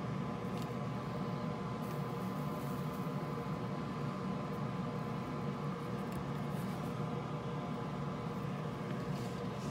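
Steady mechanical hum and hiss with a thin constant whine above it, and a few faint brief hisses.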